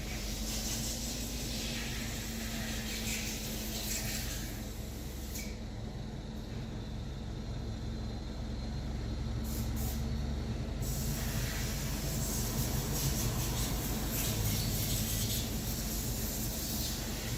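Mini Cooper R56's four-cylinder engine idling steadily just after being started, with a steady hiss over it.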